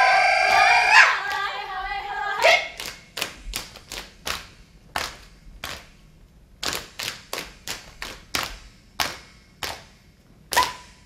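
Saman dancers' group chant held on a long sung note that breaks off about two and a half seconds in, followed by sharp unison claps and slaps of their hands, about two a second, with a brief pause midway and one louder clap near the end.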